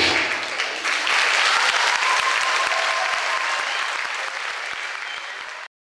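Audience applauding, the clapping slowly dying away and then cutting off suddenly near the end.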